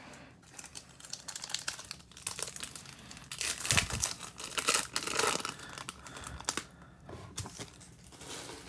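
Foil wrapper of a 2020 Topps Chrome trading-card pack crinkling and tearing as it is ripped open, loudest from about three to five seconds in, with lighter crinkling afterwards.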